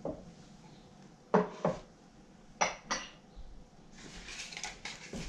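Unboxing handling noise: two pairs of sharp clicks, as of light hard items knocking together or being set down, then about a second of light crinkling and rattling of packaging near the end.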